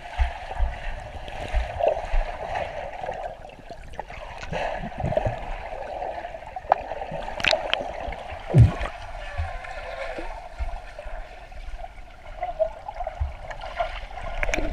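Swimming-pool water heard underwater through a submerged camera: a steady muffled rushing and gurgling, with dull low thumps now and then and a short falling low gurgle past the middle.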